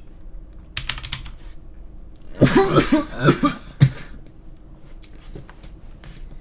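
A man coughing: a short cough about a second in, then a louder fit of coughs from about two and a half to four seconds in, a reaction to a drink he finds foul-tasting.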